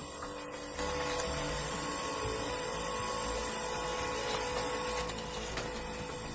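Wood-processing machinery running with a steady mechanical whine and hiss. It gets louder about a second in and eases a little about five seconds in.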